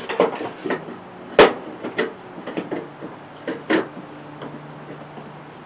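Irregular knocks and clunks of a mower blade and spindle being worked into place under the steel mower deck, the loudest about a second and a half in and another near the end.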